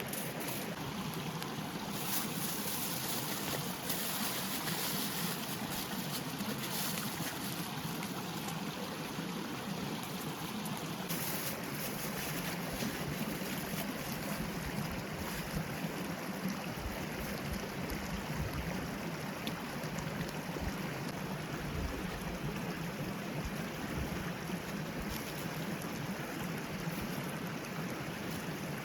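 A forest stream running, a steady rush of flowing water.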